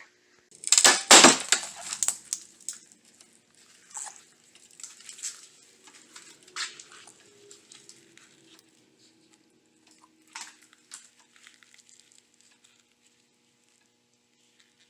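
A loud crunching clatter about a second in, then scattered rustling and light clicks that fade away, over a faint steady hum: objects being handled.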